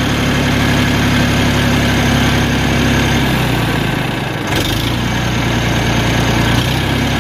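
A vehicle engine running steadily at idle. Its tone shifts and weakens about three and a half seconds in, then settles back to the same steady idle.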